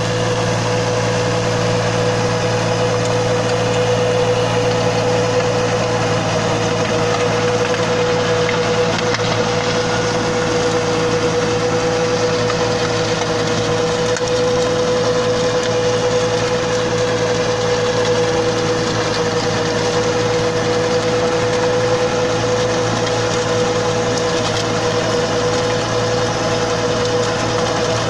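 Compact tractor engine running steadily under load, driving a 4.5 ft mini multi-speed rotavator with 24 blades that churns through the soil. It is one constant drone with a steady whine in it, with no change in speed.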